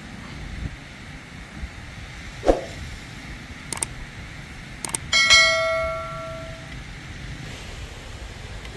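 A few light knocks, then a metal object struck once, ringing with a bright clang that fades over about a second and a half.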